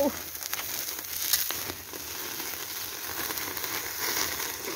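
Pork belly sizzling in a wire grill basket over an open wood fire, fat dripping into the flames and flaring up, with a steady hiss and scattered crackles and pops from the burning fat and wood.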